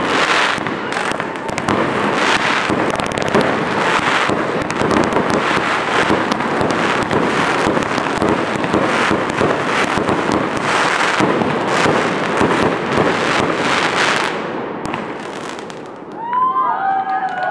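Fireworks going off: a dense, continuous run of crackling bursts and bangs that dies away about fifteen seconds in.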